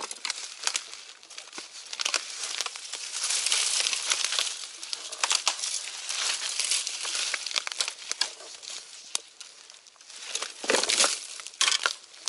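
Footsteps and a body pushing through dry undergrowth in a bamboo grove: fallen bamboo leaves and twigs crunching and crackling underfoot, with branches brushing and scraping past. One heavier crunch comes a little before the end.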